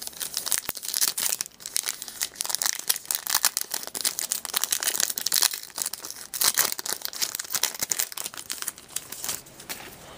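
Trading-card pack wrapper crinkling and tearing as a pack is opened and handled: a dense, continuous crackle.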